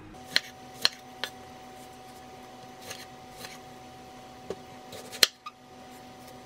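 Kitchen knife cutting tomatoes into wedges on a wooden cutting board: about seven sharp knocks as the blade goes through and meets the board, spaced irregularly, the loudest about five seconds in.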